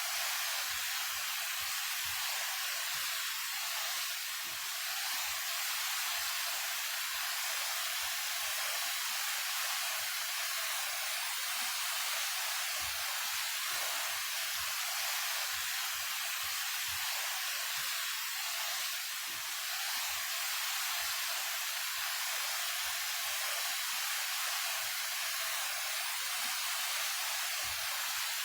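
A 28-metre waterfall, Daehye Falls, pouring steadily: a constant, even rush of falling water, mostly high hiss with little low rumble.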